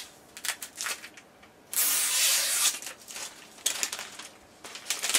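Plastic wrapping being pulled and peeled off an Amazon Echo speaker: scattered crinkles, with one loud tearing rip lasting about a second, just under two seconds in.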